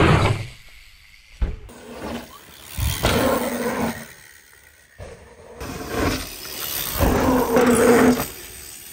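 Mountain bikes riding a dirt trail and wooden boardwalk: rumbling tyre and wind noise that swells and drops in loud bursts, across a few short clips that cut in and out abruptly.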